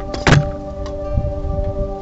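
Background music of steady held notes. About a quarter second in comes one short, loud scraping thunk, the metal cover of an outdoor electrical disconnect box being shut.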